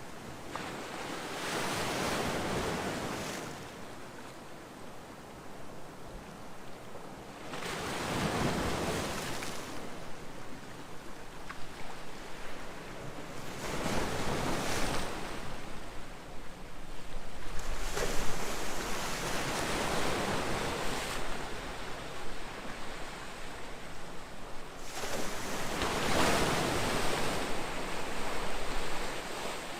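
Calm ocean waves surging and receding in a slow rhythm, about five swells of surf, each rising and falling over a few seconds.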